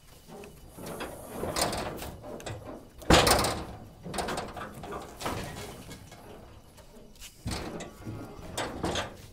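Sacks of ginger being handled: irregular thuds and scraping rustles, the loudest thud about three seconds in.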